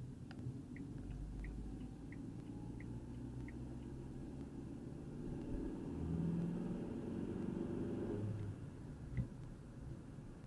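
Car engine and road rumble heard inside the cabin, with a turn-signal indicator ticking evenly for the first few seconds. The engine note rises and grows louder from about five to eight seconds in as the car accelerates, and a single sharp click comes near the end.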